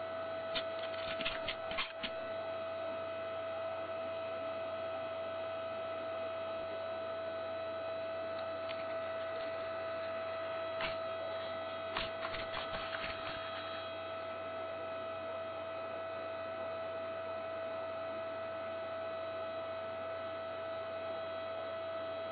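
Steady electrical hum with a constant high whine over it. A few short clicks and knocks come in two clusters, one about a second in and another around eleven to thirteen seconds in.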